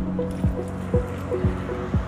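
Background music with a steady electronic beat: a low kick drum about twice a second under sustained synth tones.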